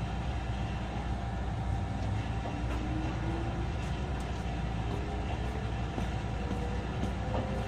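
JR West 221 series electric train running, heard from inside the passenger cabin of motor car Moha 221-66: a steady low rumble of wheels and running gear. A faint whine slowly rises in pitch through the second half.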